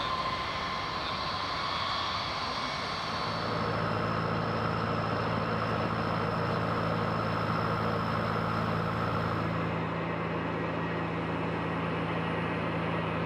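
Jet aircraft engines running: a steady rushing noise with a faint high turbine whine, joined about three seconds in by a steady low hum.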